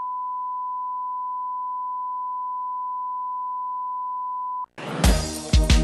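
A steady 1 kHz sine test tone, one unchanging pitch, cuts off abruptly just before the end. A hip-hop/R&B beat with heavy kick drums then comes in, louder than the tone.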